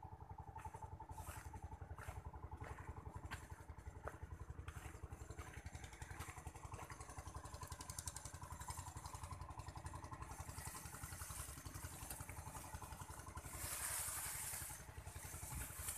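A small engine runs steadily in the background with a fast, even low rumble. A brief rustling hiss comes near the end.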